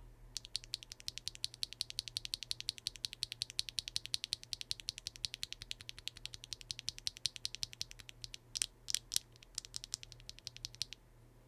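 Factory-lubed WingTree Yunie linear mechanical keyboard switches being pressed and released over and over in a fast, even run of sharp clacks, with three louder clacks about nine seconds in.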